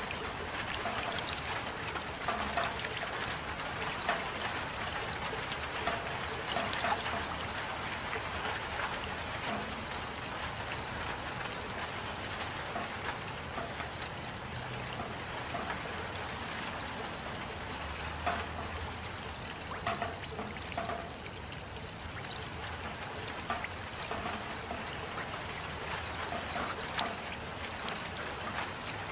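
Steady rain with close drips and trickling water, many small drop ticks over an even hiss.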